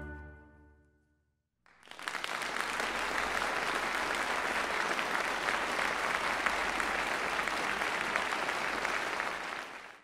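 An orchestra's final chord dies away, and after a moment of silence an audience applauds steadily, fading out near the end.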